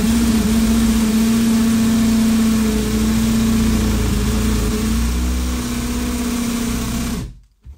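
Cordless drill running steadily under load as a long wood bit bores into a solid door, a motor hum at one pitch over the noise of the cutting, stopping suddenly about seven seconds in. The going is slow: the door is solid all the way through, and the drill seems short of power.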